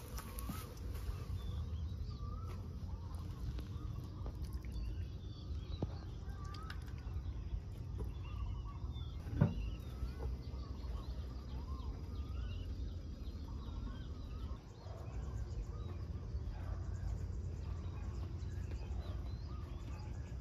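Birds chirping on and off over a steady low outdoor rumble. A single sharp clunk about nine seconds in is a sheet-metal oven cover being handled.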